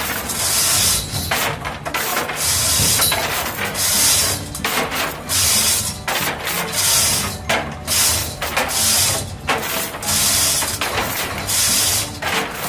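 Steel lifting chain being hauled by hand, rattling and clattering in repeated pulls about once a second.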